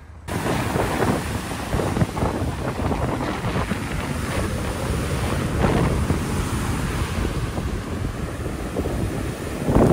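Wind noise on the microphone over surf washing up a sandy beach, starting suddenly about a third of a second in and gusting throughout.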